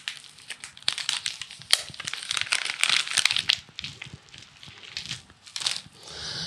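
Plastic groundbait packets crinkling and rustling as they are handled, in irregular bursts with a quieter gap after about four seconds.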